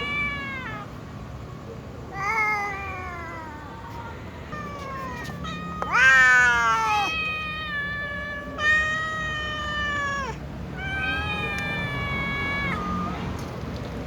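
Several cats, a small cat and a tom among them, meowing one after another before feeding: about eight or nine meows, the loudest about six seconds in, rising then falling, and several long drawn-out ones held for a second or two near the middle and end.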